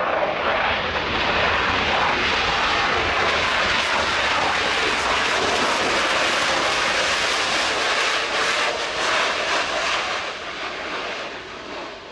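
Panavia Tornado GR4's twin RB199 turbofan engines running loud on landing approach, a steady jet noise with a faint slowly falling whine. It fades over the last two seconds as the jet moves away.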